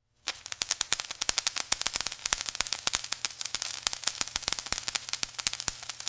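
Arc welding on a steel frame: the welding arc starting about a quarter second in, then crackling and sizzling steadily with dense irregular pops over a low electrical hum.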